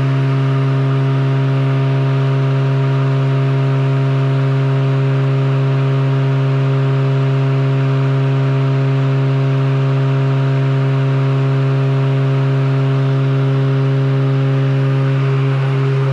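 Battery-electric stand-on lawn mower running steadily while mowing: an even electric hum with a hiss over it.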